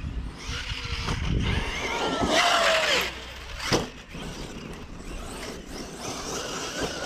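Traxxas Sledge electric RC monster truck running on 6S: its brushless motor whines up and down in pitch as it is throttled, over a steady noise of tyres on rough ground, with a sharp knock a little under four seconds in.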